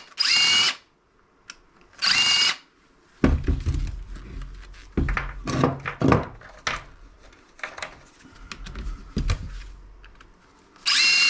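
Power drill-driver whirring in short bursts as it backs out a screw from a small electric can opener, three spins of about half a second each. Between the spins come knocks and clatter of the plastic and metal parts being handled.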